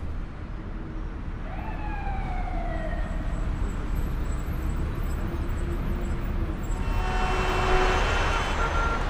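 Road traffic rumbling steadily, with a siren's wail falling in pitch about two seconds in. The traffic swells louder near the end as a vehicle passes closer.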